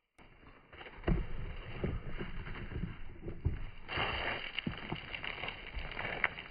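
Hurried footsteps on a gravel track, thudding roughly twice a second, with rustling and wind on the microphone.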